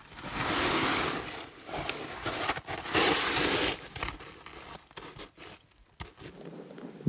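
A person crawling out through an igloo's low entrance tunnel: clothing rustling and scraping and boots crunching on packed snow, in two longer bursts of rustling near the start and about three seconds in, then scattered scuffs and knocks.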